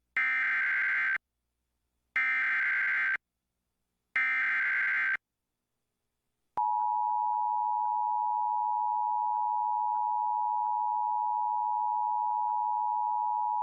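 Emergency Alert System header: three one-second bursts of SAME digital data, a second apart, then about six and a half seconds in the steady two-tone EAS attention signal starts and holds.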